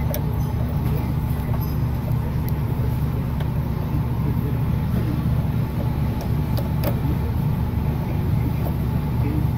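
Steady low mechanical hum with a few faint metallic clicks of a wrench working on the brake hose fitting.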